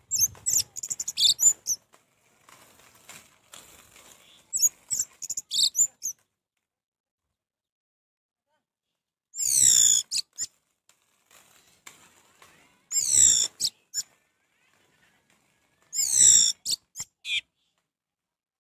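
Orange-headed thrush singing in short bursts of high, sweeping whistles that fall in pitch, each burst a second or two long, with pauses of a few seconds between them and a longer silent gap in the middle.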